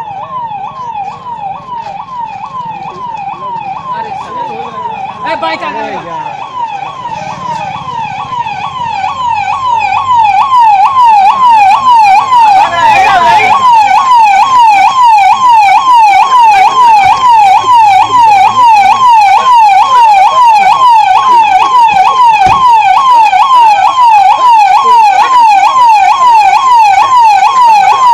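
Police vehicle siren sounding a fast, repeating rise-and-fall wail. It grows louder about ten seconds in and then holds steady.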